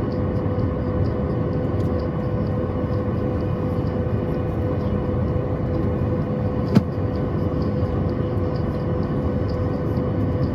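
Inside the cabin of a Boeing 737 MAX 9 on the ground before the takeoff roll: its CFM LEAP-1B engines and cabin air give a steady rumble with a constant hum. A single sharp click comes about seven seconds in.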